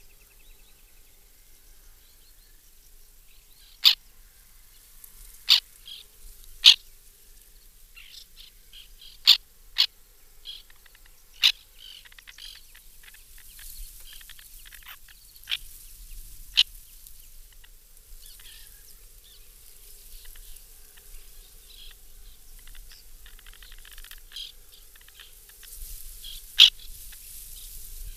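White-winged terns calling at the nest: short, sharp single calls, about a dozen spread unevenly, with fainter brief calls of other birds in between.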